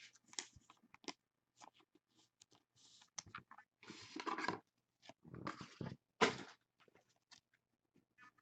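Trading cards and their packaging being handled: irregular taps and clicks with a few short crinkling rustles in the middle.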